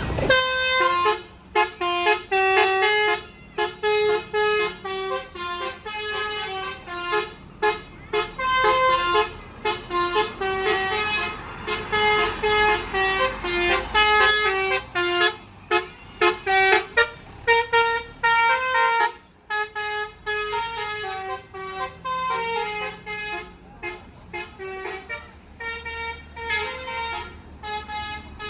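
Tour bus 'telolet' musical air horn blowing a fast tune of many short notes in quick succession, with a brief pause about two-thirds of the way through.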